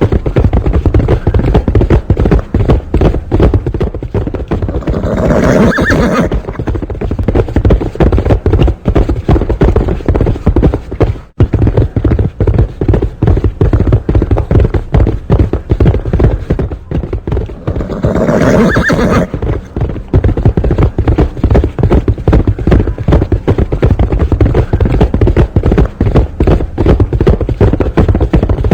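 A horse galloping, with fast, continuous hoofbeats. The horse whinnies twice, about five seconds in and again near eighteen seconds.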